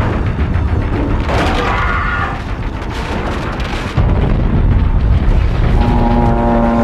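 Deep, continuous low rumble from a war-film sound mix, jumping suddenly louder about four seconds in, with held music notes coming in near the end.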